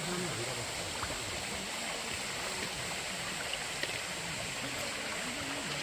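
Valley stream flowing over rocks: a steady rush of running water.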